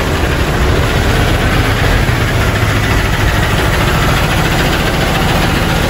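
Large diesel engine idling steadily, with a heavy, even low throb.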